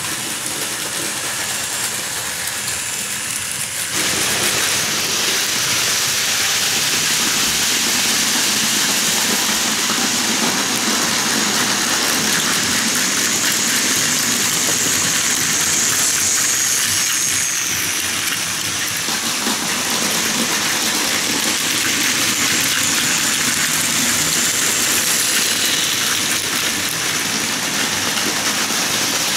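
Plarail Advance battery-powered toy trains running on plastic track: a steady whir of the small motors with the rattle of plastic wheels on the track. It turns louder and brighter about four seconds in.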